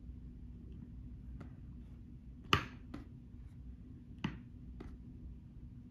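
A few short, sharp clicks spaced irregularly, the loudest about two and a half seconds in and another just after four seconds.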